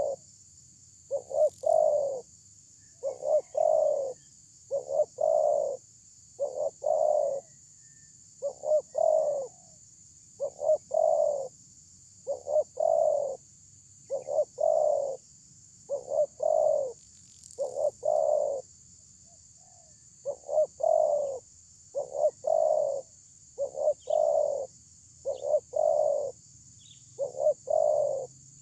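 Spotted dove cooing over and over in short phrases of two or three deep coos, about one phrase every second and a half, with one brief pause about two-thirds of the way through.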